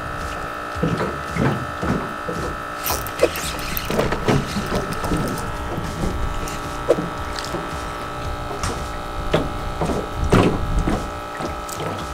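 Spinning fishing reel being cranked to bring in a hooked fish, with scattered clicks and knocks from the reel and tackle handling over a steady hum.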